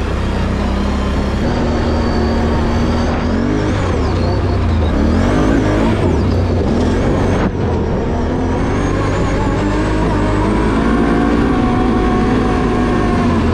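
Can-Am Renegade 850 X xc quad's V-twin engine running under way, its pitch rising and falling as the throttle opens and eases, with a brief dip about seven and a half seconds in.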